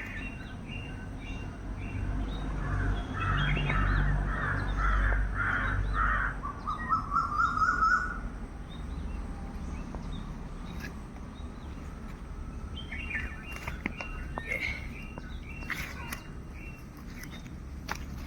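A crow cawing several times, about two caws a second, followed by a quick run of shorter calls; other birds call faintly later, over a low rumble of outdoor background.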